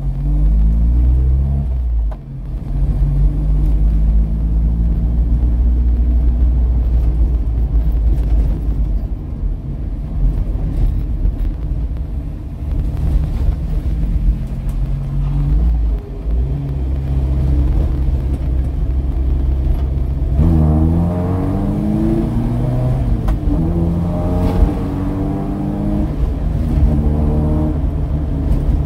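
Chevrolet Chevette's four-cylinder engine heard from inside the cabin while driving, the revs climbing and falling as it accelerates and changes gear, with a brief drop about two seconds in and repeated rising pulls from about twenty seconds in.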